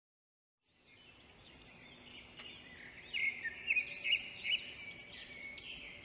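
Bird chirping: a quick run of short, high chirps starting about a second in, louder from about three seconds in.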